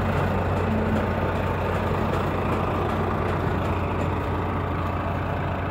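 Audi A8 quattro's 4.2 V8 engine running steadily under heavy load as its wheels spin on icy slush, towing a semi-trailer truck, over a steady low engine hum.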